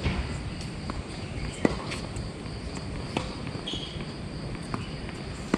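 Tennis balls being struck by rackets and bouncing during a rally: a series of sharp pops spaced about one to one and a half seconds apart, the loudest about a second and a half in.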